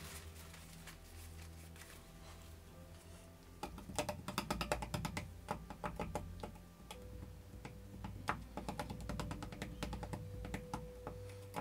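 Quick, irregular light clicks and taps from thin plastic paint cups, handled with gloved hands as yarn is pushed down into the pouring paint. The clicks start a few seconds in and run on densely, after a stretch of soft background music.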